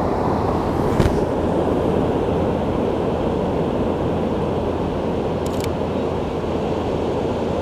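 Steady low rush of wind and ocean surf on the beach, with a single sharp click about a second in.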